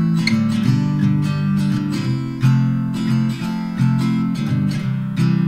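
Background music: a strummed acoustic guitar playing a steady run of chords.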